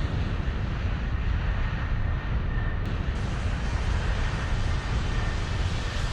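Jet airliner in flight: a steady, rumbling engine drone with a faint high whine.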